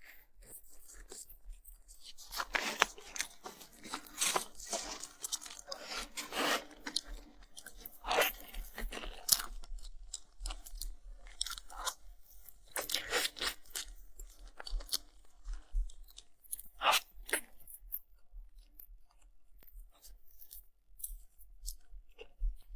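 Close-miked chewing and crunching of food, with bursts of crisp crunches that come thickest in the first half and thin out toward the end.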